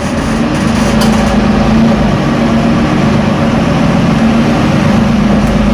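Interior sound of a Mercedes-Benz Conecto LF city bus under way: its rear-mounted OM936 six-cylinder diesel running with a steady low engine note over road and cabin rumble.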